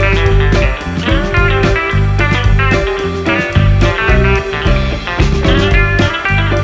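Background music: guitar-led blues-rock with a steady beat and bass.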